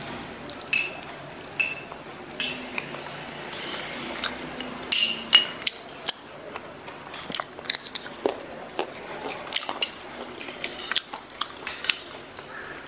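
Metal spoons clinking and scraping against small ceramic bowls as people eat: many light, irregular clinks, a few with a brief ring.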